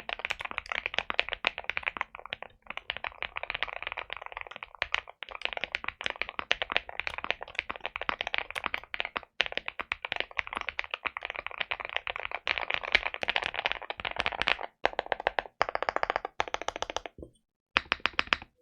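Fast typing on a mechanical keyboard with Keygeek Y2 switches, PBTFans keycaps, a PC plate and full foam: a dense, rapid run of keystroke clacks, broken by short pauses near the end.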